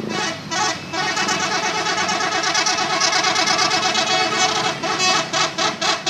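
Bus 'telolet' multi-tone horn playing a melody: a few short toots, then a long run of rapidly changing notes, then a quick series of short toots near the end.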